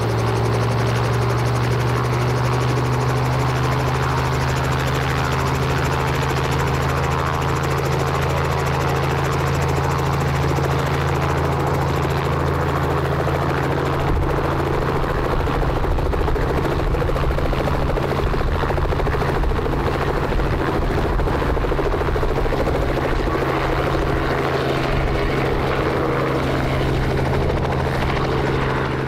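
Light helicopter running at full rotor speed, a loud steady drone with a strong low hum. From about halfway a deeper rumble joins in as the rotor takes the load and the helicopter lifts off and flies away.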